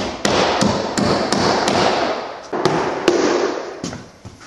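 Hammer driving nails through a drywall sheet into wooden studs: a quick run of blows, about three a second, thinning out after about two and a half seconds.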